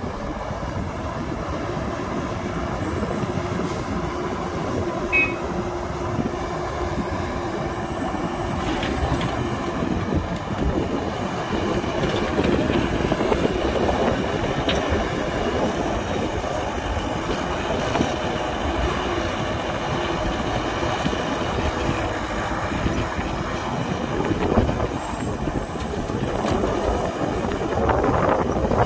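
Excavator digging and loading dirt: its diesel engine runs steadily under load with a heavy rumble, and a few knocks are heard along the way.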